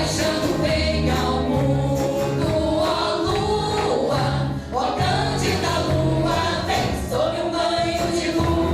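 Live music: a group of voices singing over a band, with held bass notes and a steady beat.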